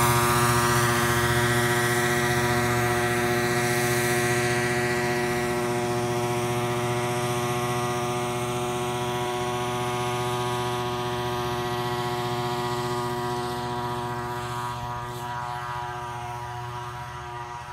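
Mosquito-control spray truck with its fogging unit running, a steady droning hum with a hiss over it that fades slowly as the truck moves away.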